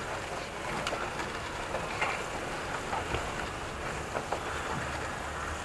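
A small brush scrubbing a motorcycle drive chain, with scattered light clicks and rattles from the chain links.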